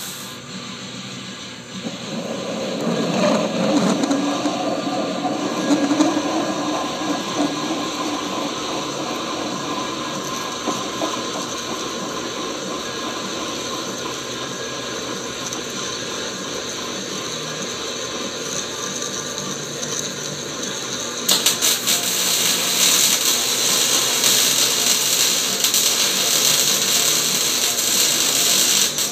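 Large twist drill boring into a steel bearing cap spinning in a metal lathe: a steady cutting noise over the running lathe. It builds up about two seconds in, and about 21 seconds in it turns brighter and hissier.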